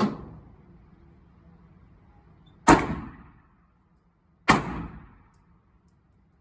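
Three gunshots: one right at the start, a second about two and a half seconds later and a third under two seconds after that, each followed by a short echoing decay.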